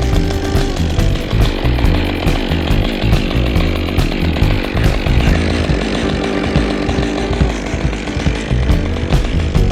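Chainsaw running and cutting wood, with background music mixed in.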